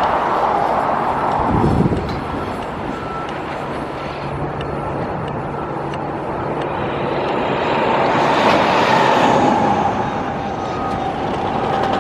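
Road traffic passing steadily. A vehicle goes by and swells louder about eight seconds in.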